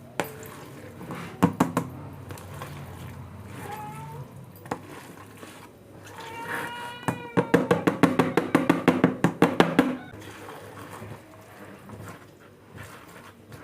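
Domestic cats meowing for food, several short rising or falling mews and one longer call about six seconds in. This is followed by a quick run of clicks and clatter, several a second, for about three seconds.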